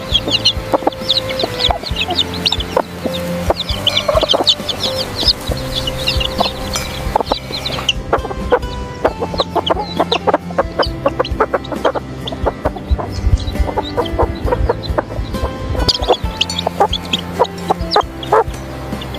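Chickens clucking and calling, with background music underneath. The short high calls thin out in the middle for several seconds, when a run of rapid clicks takes over, then return near the end.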